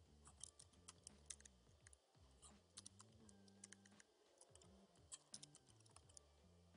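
Computer keyboard being typed on: faint, irregular key clicks over a steady low hum.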